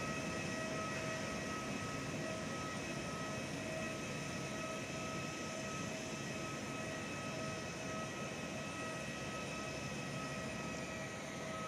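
Airbus A320-family airliner's jet engines running at idle during pushback by a tug: a steady rushing noise with a high whine made of several steady tones.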